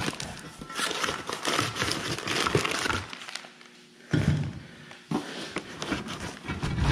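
A cardboard parts box being opened by hand, with packing material crinkling and rustling and a dull thump a little after four seconds in.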